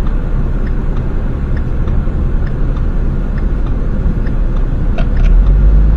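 Car interior rumble of engine and tyres on a wet road while driving, with a faint regular tick about once a second. The low rumble grows louder about five seconds in.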